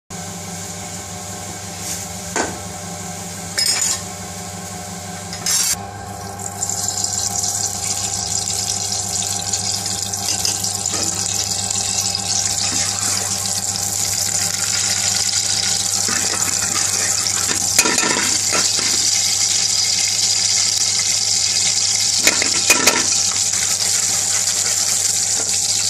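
Oil heating in an aluminium pan over a gas burner: a sizzling hiss starts about six seconds in and grows slowly louder, over a steady hum. Three short knocks come in the first six seconds, and a metal ladle clinks against the pan a few times near the end as the oil is stirred.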